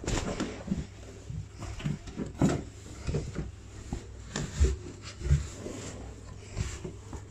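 Irregular bumps, knocks and rubbing from a phone being handled close to the microphone as a child shifts about in a cramped hiding place, over a faint low hum.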